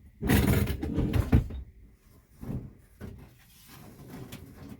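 A part being worked loose and pulled off by hand: scraping and rattling for about a second and a half, ending in a hard knock, then lighter scrapes and knocks.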